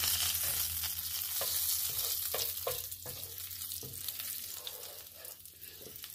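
Curry powder and ginger sizzling in hot oil in a pan while a wooden spoon stirs and scrapes the pan bottom, the Jamaican step of 'burning' the curry. The sizzle dies down toward the end.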